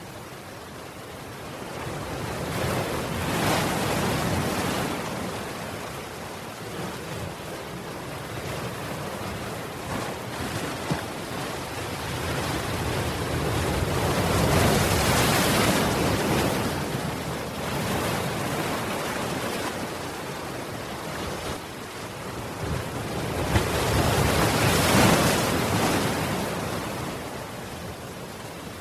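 Ocean waves breaking against a seawall and washing across the paving behind it: a steady rushing surf that swells three times into loud crashes and fades away again.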